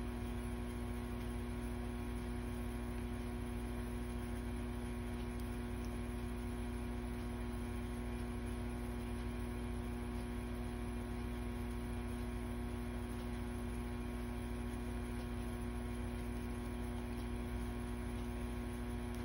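Steady electrical hum made of several fixed tones, unchanging throughout.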